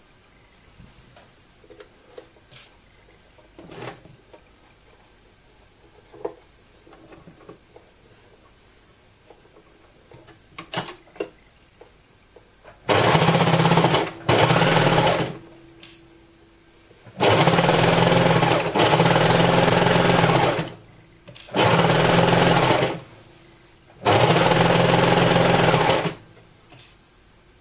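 Overlock machine (serger) sewing a seam in knit fabric in six short runs of one to two seconds each, stopping briefly between runs. The runs begin about halfway through; before that there are only a few faint clicks.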